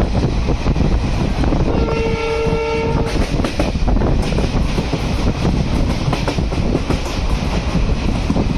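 A moving train's steady rumble and wheel clatter, with one horn blast lasting just over a second, about two seconds in.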